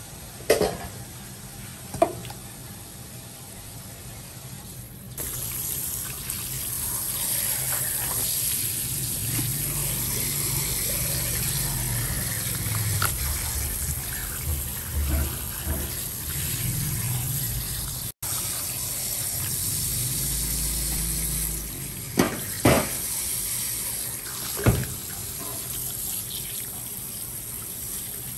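Tap water running steadily from a faucet onto raw fish flesh and a plastic cutting board as hands rinse it. The water comes on about five seconds in. There are a few sharp knocks, two near the start and a cluster a little before the end.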